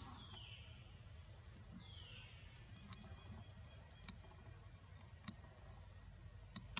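Near silence: faint outdoor ambience with a low hum, two short falling chirps in the first two seconds, and four sharp ticks about a second apart in the second half.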